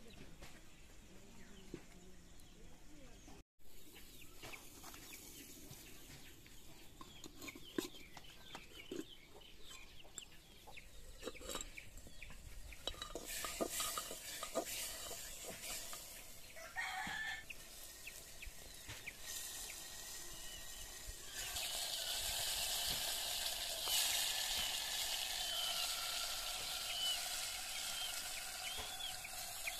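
Domestic chickens clucking and a rooster crowing in the background, mixed with clicks and knocks from handling raw chicken pieces and clay pots. A steady hiss grows louder about two-thirds of the way through.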